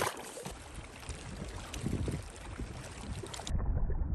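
Water splashing and sloshing at the shoreline as a trout is released from a landing net, starting with a sudden sharp knock. About three and a half seconds in, it gives way to a low wind rumble on the microphone.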